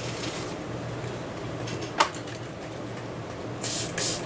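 Small fan parts and tools being handled on a workbench, with a faint steady hum underneath. A single sharp click comes about halfway through as something is set down, and a short, two-part hiss follows near the end.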